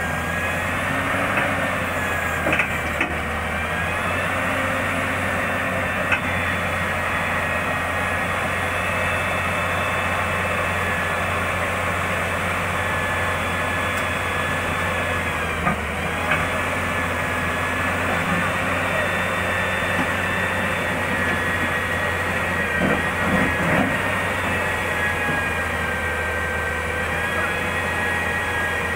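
Hyundai 210W-9S wheeled excavator running under load, its engine and hydraulics giving a steady low hum with a high whine that bends up and down now and then as the boom works. It is pushing itself up onto a lowbed trailer. A few short knocks come through, most of them about three-quarters of the way in.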